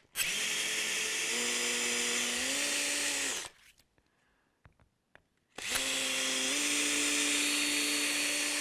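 Cordless drill running twice, about three seconds each time, its motor pitch rising in steps as it bores small centering holes through a template into a wooden Telecaster body.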